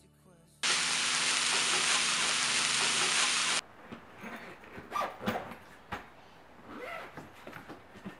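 Food sizzling in a frying pan for about three seconds, starting and stopping abruptly. Then quieter rustles and light knocks as clothes and a suitcase are handled.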